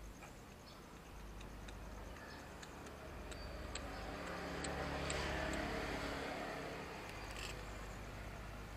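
A motor vehicle passing by on the road: its engine and tyre noise swell up about halfway through, then fade away.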